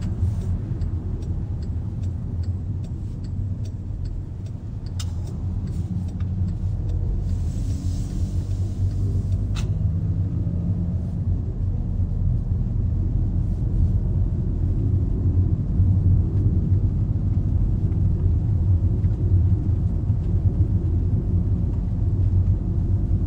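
Low, steady engine and road rumble inside a car driving slowly, with a run of light clicks over the first several seconds and a short hiss about eight to ten seconds in.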